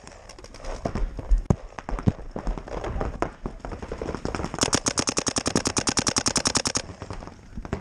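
Paintball markers firing: scattered single pops for the first few seconds, then a rapid, even string of shots lasting about two seconds from just past the middle.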